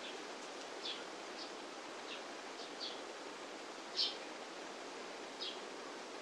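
Quiet room tone: a steady hiss, with a few faint, very short high sounds scattered through it, the loudest about four seconds in.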